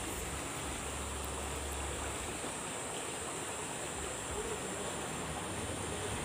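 Steady rush of flowing water in an irrigation canal, even and unbroken.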